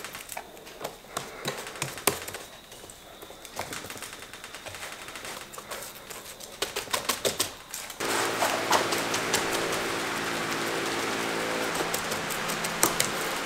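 Paintbrush stippling resin into fiberglass mat: quick, irregular taps and clicks. About two-thirds of the way through, a steady hiss and hum comes in under the tapping.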